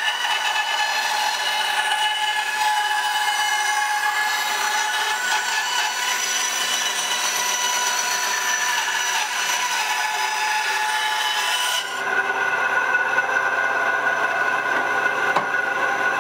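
Ryobi 9-inch benchtop band saw cutting through a wooden board: the blade rasps through the wood over the steady whine of the running motor. About twelve seconds in the cut finishes and the rasp stops, leaving the saw running on without load.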